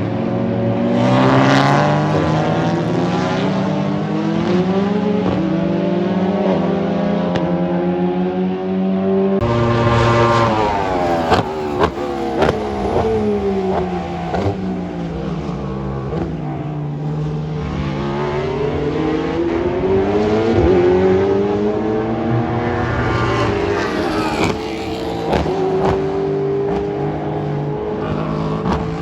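Race car engines on a circuit at high revs, pitch climbing and falling as the cars run through the gears and pass by. The sound changes abruptly about nine seconds in, and a few sharp cracks come about two seconds later.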